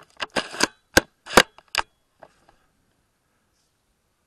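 A quick cluster of sharp clicks and knocks from a Tokyo Marui VSR-10 spring bolt-action airsoft rifle being handled, close to the rifle-mounted camera. The loudest come about a second in and at about a second and a half, and the clicks stop after about two seconds.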